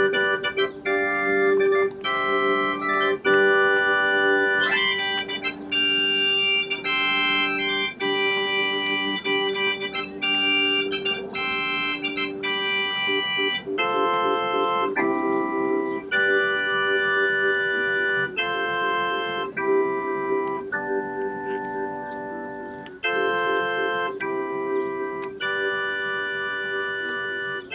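Organ music: a run of held chords, each changing after about half a second to a second and a half, over one sustained note that holds underneath throughout.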